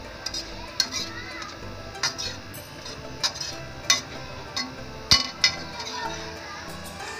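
Metal spatula clinking and scraping against a steel frying pan as corned beef is stirred, about eight sharp clinks at irregular intervals.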